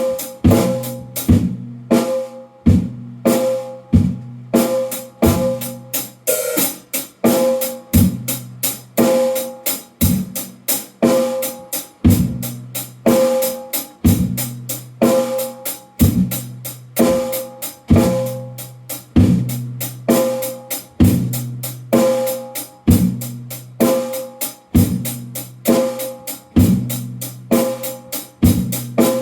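Drum kit played in a steady, even beat, about two hits a second, bass drum and snare alternating.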